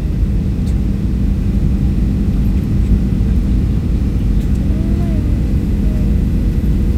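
Airliner cabin noise in flight: a steady, loud low rumble of engines and airflow with a constant hum running through it.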